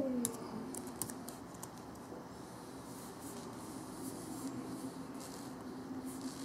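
Quiet room tone with a faint steady hum and a few faint clicks and taps of a laptop keyboard and touchpad in use, most of them in the first second and a half.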